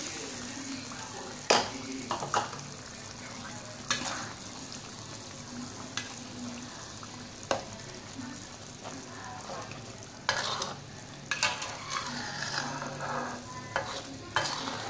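Sambal chilli paste with squid frying in a wok, hissing steadily. A metal spatula stirs and scrapes against the pan with sharp clinks every second or two, the loudest about a second and a half in and more of them near the end.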